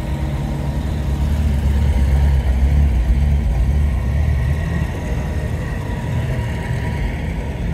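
Classic cars driving past slowly one after another, their engines running low and steady. The engine sound swells as one car passes close, about two to three seconds in, then eases.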